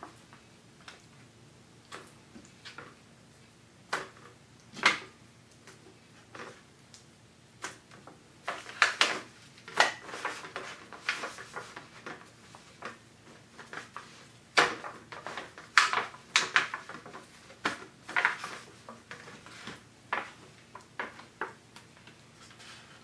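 Irregular crinkles, clicks and taps of a disposable aluminium foil tray being handled as veal cutlets are turned by hand in beaten egg, in scattered clusters with short quiet gaps.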